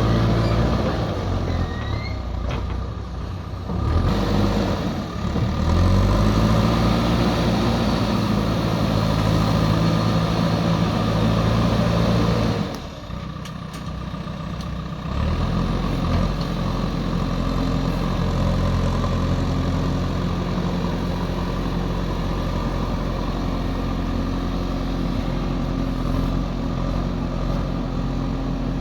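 Diesel engine of heavy earthmoving machinery running under load. It revs up about five seconds in, drops off sharply a little before halfway, then picks up again and runs steadily.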